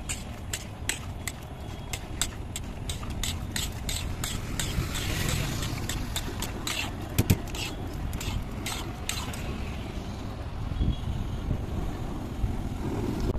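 Metal spoon clinking and scraping against a steel bowl as chickpea curry is stirred and mixed, about two or three clinks a second, fewer in the last few seconds. A low rumble of street traffic runs underneath.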